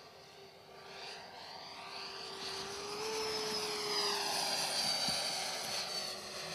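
Radio-controlled SAAB J32 Lansen scale model jet flying past: a steady engine whine with a rushing noise grows louder, peaks about four seconds in, then fades as it flies away.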